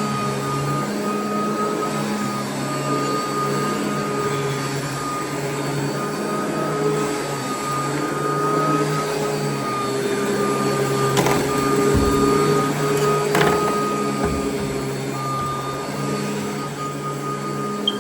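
Royal vacuum cleaner running over carpet: a steady motor hum with a constant whine, swelling a little in the middle, with a few sharp ticks as debris is sucked up.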